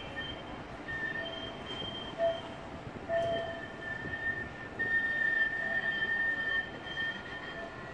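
Approaching tram's steel wheels squealing on the rails, a high-pitched squeal that comes and goes in several overlapping tones and is loudest in the second half, over a low rolling rumble.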